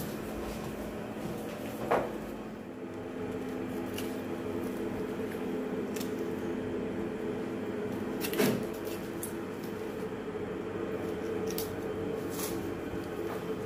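A steady hum made of several even tones, with scattered light clicks and two louder sharp knocks, one about two seconds in and one about eight seconds in.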